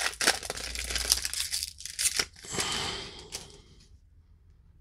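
Baseball cards being handled and flipped through by hand: a run of quick rustling, crinkling and flicking sounds that dies away about three and a half seconds in.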